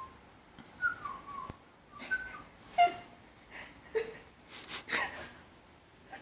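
English bulldog puppy whining in short, high-pitched whimpers that slide in pitch, with one louder whine just before the middle, and a few soft knocks and rustles between them.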